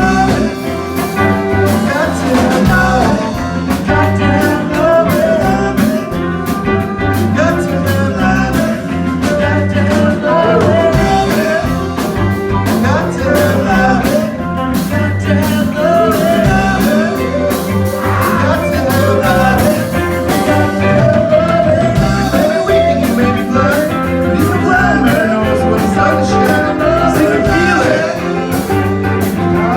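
A band playing upbeat rock and roll music, with some singing.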